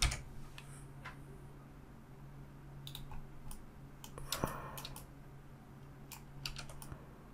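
Computer keyboard keys and mouse buttons clicked now and then, single taps and short runs of clicks, over a faint steady low hum.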